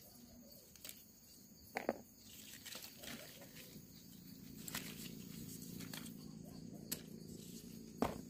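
Faint rustling and snapping of black pepper vine leaves and stems as green peppercorn spikes are plucked by hand, with a few sharp clicks. A low steady hum comes in about two and a half seconds in.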